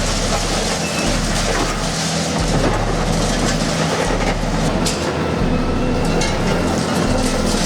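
Heavy machinery running steadily with a low engine hum, with clattering and crackling over it.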